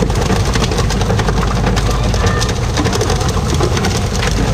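Fishing boat's engine running steadily under a constant patter of splashing water, dense with small clicks and slaps, as the crew pole-fish for tuna over the rail.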